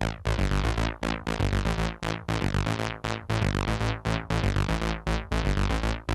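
Hard beat techno music: a synthesizer riff in a repeating pattern that cuts out briefly about once a second.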